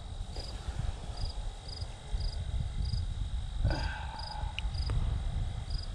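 A cricket chirping, short high pulsed chirps repeating about twice a second, over a steady low rumble.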